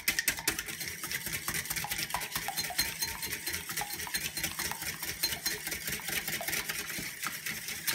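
Wire whisk beating a raw egg in a glazed bowl, its wires clicking and scraping against the bowl in rapid, steady strokes.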